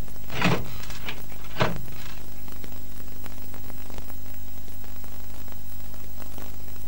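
Steady electrical hum and hiss of an old television soundtrack, with two short knocks about a second apart near the start.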